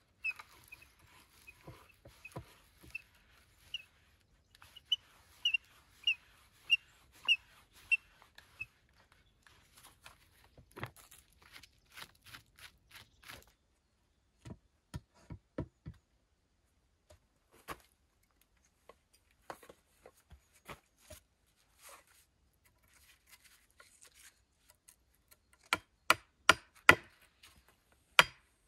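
Hand brace drill being cranked, its bit grinding and rubbing, while a high chirp repeats about every half second. Then scattered knocks as a wooden pole is set in place, and near the end a quick run of hard blows as an axe head pounds the wooden post into the ground.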